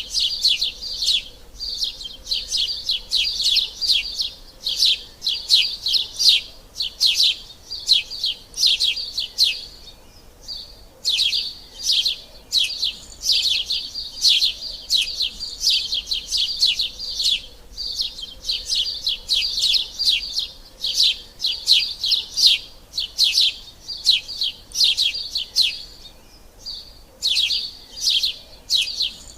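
Sparrows chirping in quick, continuous runs of short high chirps, several a second, with brief pauses about ten seconds in and again near the end.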